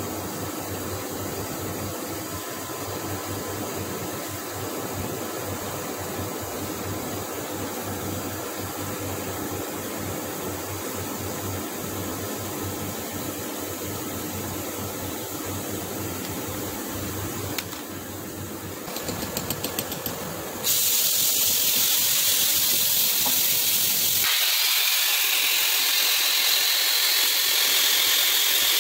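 Steady machine noise with a low hum, then a short run of rapid clicks and, about two-thirds of the way in, a flame spray-welding gun starts with a loud, steady hiss as it sprays metal onto the turning screw shaft.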